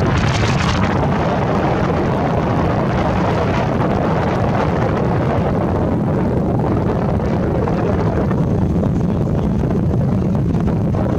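Wind buffeting the camera's built-in microphone: a steady, loud low rumble with a hiss above it, the hiss thinning about halfway through.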